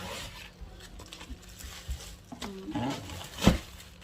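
A short animal call, its pitch sliding down and then back up, over light clicks from plastic containers being handled, with a sharp knock about three and a half seconds in.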